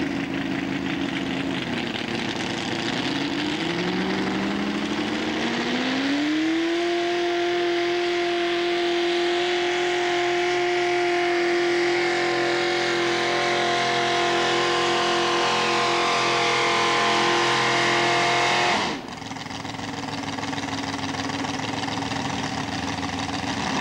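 Mini pulling tractor's engine at full throttle under load while it drags a weight-transfer sled. The revs dip briefly, climb over a few seconds to a high, steady pitch and hold there, then cut back sharply about nineteen seconds in to a lower running note as the pull ends.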